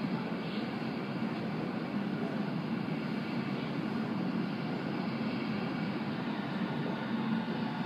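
Steady low rumble of an R160 subway train approaching through the tunnel, still some way off.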